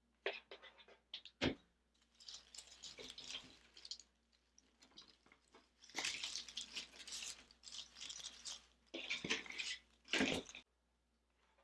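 Rustling and crackling of faux greenery and grapevine as artificial flower stems are handled and pushed into a grapevine wreath, in several rough spells, with a few sharp clicks in the first second or so.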